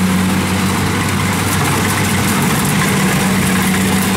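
Kubota DC-70 combine harvester running while it cuts ripe rice: a steady engine drone with a constant low hum that does not change.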